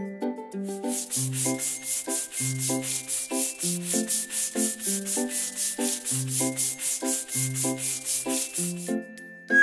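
Cartoon paintbrush sound effect: a rhythmic scratchy brushing at about four strokes a second, stopping shortly before the end, over a children's music backing with a bass line and chords.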